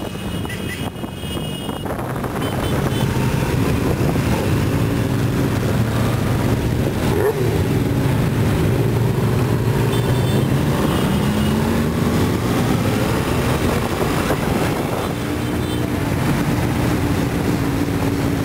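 Engines of a convoy of motorcycles running on the road, heard from among the riders, with wind on the microphone at first. The engines grow louder about two seconds in, one rises in pitch around the middle, and a steady engine note holds near the end.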